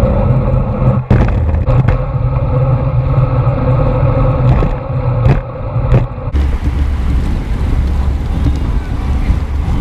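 Wind buffeting and road rumble picked up by a camera mounted on a racing bicycle during a race, with a few sharp knocks in the first six seconds. About six seconds in, the sound changes to a deeper, steadier rumble.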